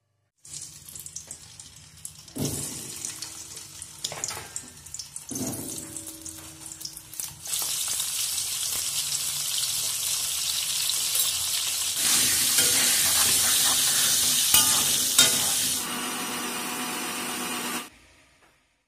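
Small whole potatoes coated in turmeric sizzling as they fry in hot oil in a pan, a steady hiss that starts about a third of the way in, grows louder midway and cuts off suddenly near the end. Before it there are a few knocks and clanks of kitchen utensils.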